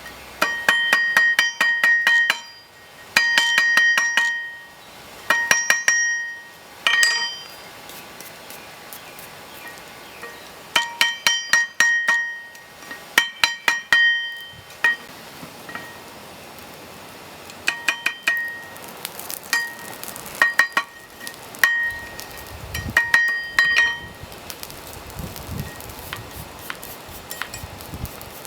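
A hammer striking steel on a railroad tie-plate anvil in several runs of quick blows, each one ringing with a bright metallic ring. This is hand forging of a small knife blade from a grass-whip steel rod.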